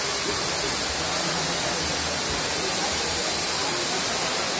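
A row of ground firework fountains hissing steadily as they spray sparks, with no bangs.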